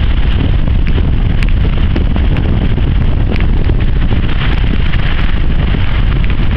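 Strong wind buffeting the microphone: a loud, steady rumble with no letup.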